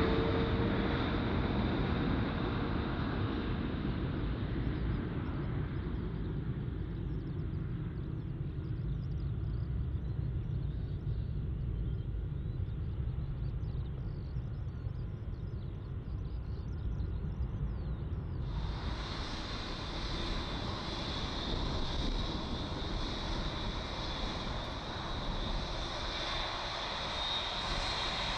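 Airliner engine noise after a pass: a low rumble fading out. About two-thirds of the way in the sound changes abruptly to a brighter hiss, and near the end a faint engine whine starts rising as the next aircraft approaches.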